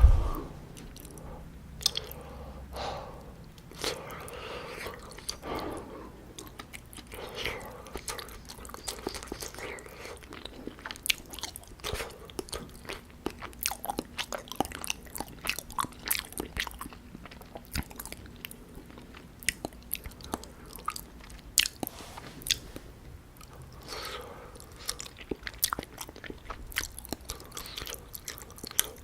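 Close-miked wet chewing and mouth sounds of eating soft, syrup-soaked gulab jamun: many small sticky clicks and smacks. A single loud thump right at the start.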